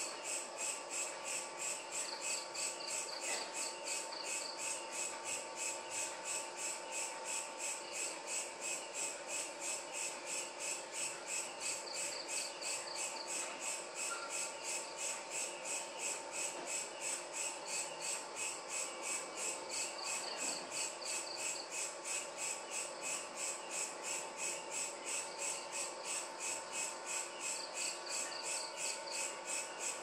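Crickets chirping in a steady, even pulse, several chirps a second. A second insect trills in short bouts a few times along the way.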